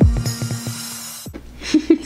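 Electronic intro music with a steady beat and deep kick drums, a high hiss laid over it, cutting off suddenly about a second and a quarter in. A woman's short voice sounds follow near the end.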